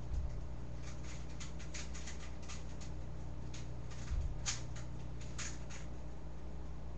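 Rubik's cube being turned quickly mid-solve: a run of light plastic clicks, a few a second, with two soft low thumps, just after the start and about four seconds in.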